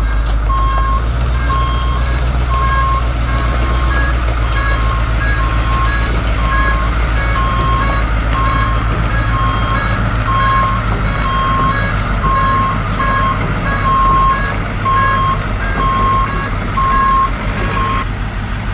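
Old Ford F-series dump truck reversing: its backup alarm beeps about once a second over the low rumble of the idling engine. The beeping stops near the end.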